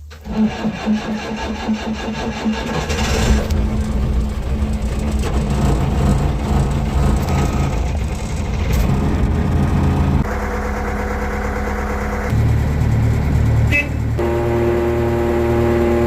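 The four-cylinder Deutz diesel of a 1967 Atlas excavator starting from cold, catching almost at once and then running steadily, its note changing twice in the second half. A steady higher tone sounds over the engine near the end.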